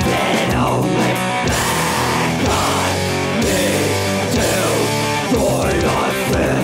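Heavy metal band playing: electric guitar over bass and drums, with steady cymbals.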